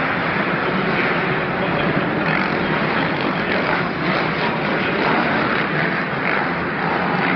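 Supercross motorcycles racing around the dirt track: a steady, dense din of engines that holds at one level throughout.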